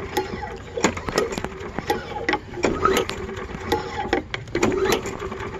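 Toro 22-inch self-propelled mower's small engine running unevenly, its steady note breaking up, with irregular sharp clicks and pops. The rough running is a sign that the engine needs a tune-up.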